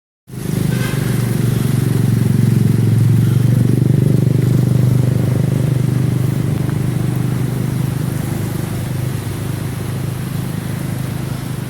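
A vehicle engine running steadily close by, a loud low drone with a fast even pulse.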